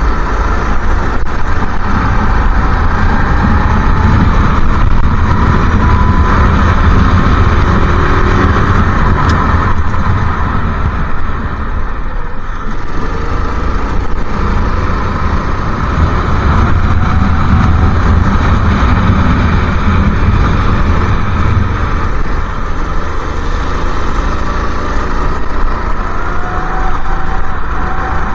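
Go-kart engine heard from on board at racing speed, its revs rising and falling through the corners and dropping off briefly around the middle as the kart slows, over a steady low rumble.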